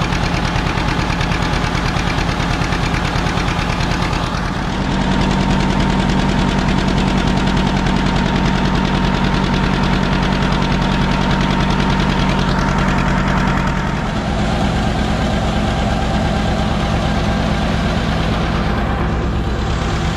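Tractor engine running steadily, warmed up. It grows louder about four and a half seconds in and eases back a little about fourteen seconds in.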